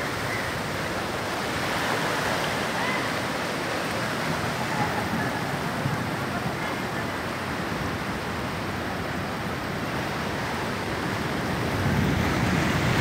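Seawater from a sea surge rushing and churning across flooded ground, a steady, unbroken rush of water that grows a little louder near the end.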